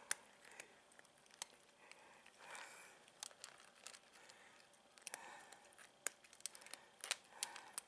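Two cats eating dry kibble: faint, irregular crunching and clicking as they chew.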